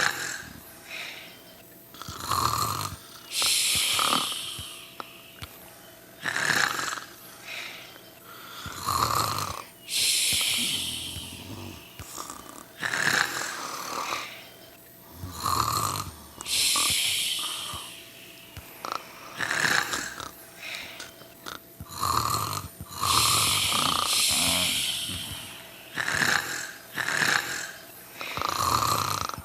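Steady, regular snoring of a sleeper: each breath is a short snore followed by a longer hiss, repeating about every three seconds.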